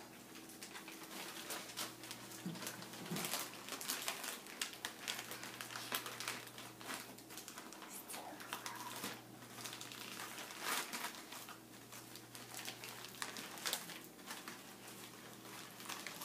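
Wrapping paper crinkling and rustling in irregular crackles as a toddler handles a wrapped present.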